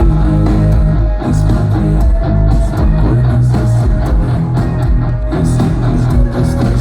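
Live rock band playing an instrumental passage at full volume: guitars over heavy bass and steady drums, with no vocals. The full band comes in louder right at the start.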